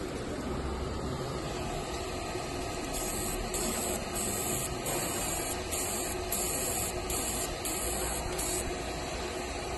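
Fiber laser marker engraving a metal cylinder held in a rotary chuck: a high-pitched hiss comes in about three seconds in and runs in about eight short spells broken by brief pauses, over steady background noise.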